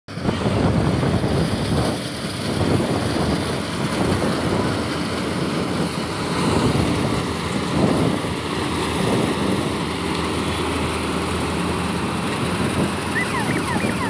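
Syan 998 combine harvester running under load as it cuts and threshes wheat: a steady, noisy machine drone. A run of short high chirps starts near the end.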